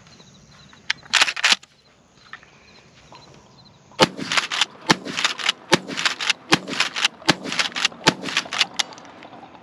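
Kel-Tec KSG 12-gauge pump-action bullpup shotgun fired rapidly, about six shots under a second apart, with the action worked between them. A brief rattle comes about a second in, before the string of shots.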